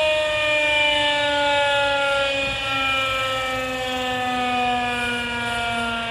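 Federal Signal 2001 rotating electromechanical outdoor warning siren sounding its test tone. The pitch sinks slowly and the loudness gently swells and fades.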